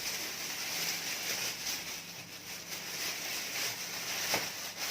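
Plastic freezer bag rustling and crinkling steadily as it is handled, with frozen breaded chicken strips inside.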